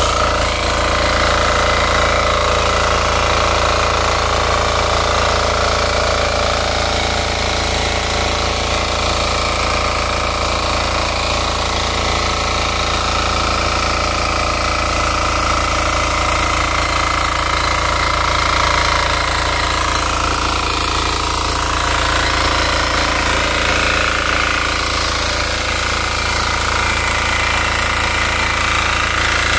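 KisanKraft 350D mini power tiller's engine running steadily under load while its rotary tines churn through soil.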